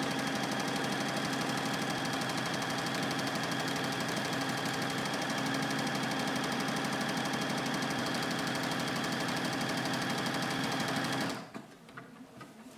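Juki HZL-UX8 computerized sewing machine stitching a buttonhole at a steady speed, its motor humming under quick, even needle strokes. It stops suddenly about eleven seconds in.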